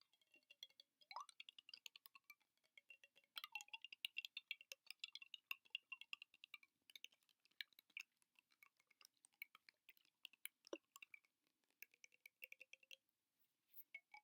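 Fast, light ASMR tapping on hard objects: a dense run of quick faint clicks with a slight ringing to them, easing off briefly about seven seconds in and again near the end.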